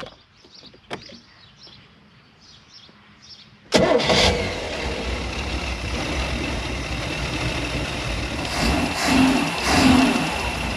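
Newly built 350 cubic-inch Chevy V8 marine engine of a ski boat: a couple of clicks, then the engine comes in abruptly about four seconds in and runs steadily, swelling slightly near the end.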